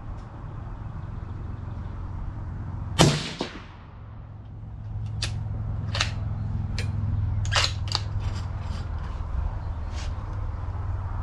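A single rifle shot about three seconds in, a sharp crack with an echoing tail. Several fainter sharp cracks follow over the next few seconds, over a steady low rumble.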